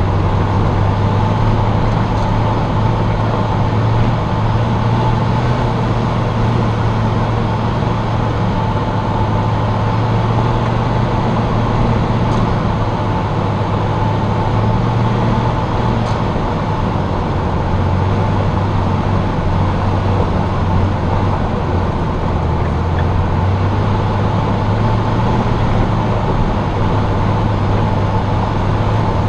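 Jeep engine running steadily under load as it climbs a mountain road, a low drone that shifts a little in pitch, with tyre and road noise. Heard from a camera mounted on the hood.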